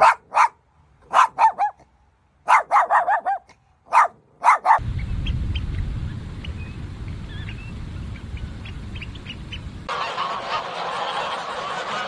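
A dog barking in quick clusters of sharp barks for nearly five seconds. Then a low rumble of wind and surf with faint high piping calls of oystercatchers. From about ten seconds in, a flock of domestic geese honking over one another.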